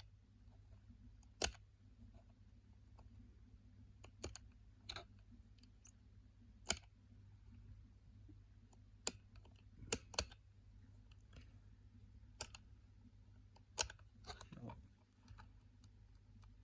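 Irregular small sharp clicks of a combination key lockbox's number wheels being turned, one detent at a time, while the shackle bar is held under tension to feel for the loose wheel. About a dozen clicks, spaced a second or more apart, over a faint low hum.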